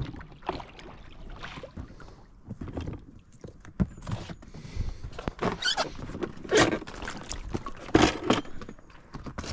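Oar of a small inflatable boat dipping and splashing in shallow water, with a few knocks and scrapes of the oar and boat. The strokes are irregular, and the louder splashes come in the second half.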